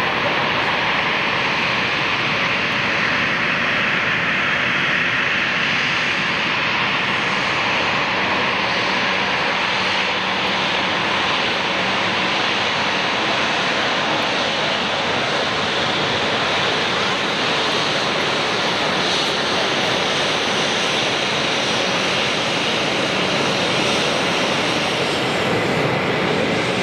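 Embraer 195 jet airliner taxiing after landing, its two General Electric CF34-10E turbofan engines running steadily at low taxi power: a continuous even jet rush with a faint low hum underneath.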